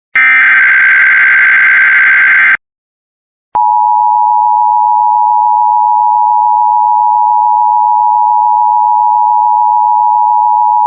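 Emergency Alert System signal: a burst of digital SAME header data tones about two and a half seconds long, then a second of silence. Then the steady two-tone EAS attention signal begins and holds.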